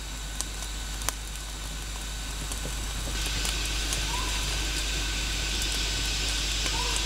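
Small campfire of dry twigs burning and crackling, with sharp pops in the first second or so. From about three seconds in, a steady high insect drone sets in over it, with two short rising chirps.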